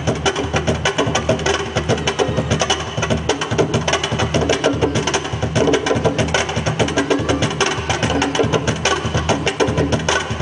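Afro-Peruvian festejo percussion played for a dancer: a fast, steady rhythm of sharp wooden strikes and drum strokes.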